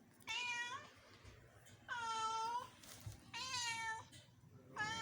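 Domestic cat meowing: three drawn-out, fairly level-pitched meows about a second and a half apart, with a fourth starting at the very end.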